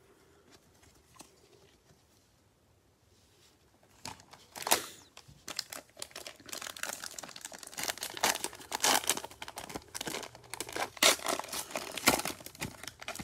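Plastic wrapper of a Donruss Optic football fat pack crinkling and tearing as it is opened by hand. It starts about four seconds in, after a few faint taps, and carries on with several loud crinkles.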